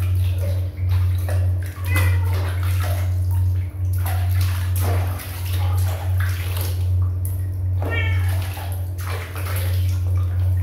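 Water splashing and sloshing in a plastic basin as a kitten is bathed and hands scoop water over it, with the kitten meowing once about eight seconds in. A steady low hum runs underneath.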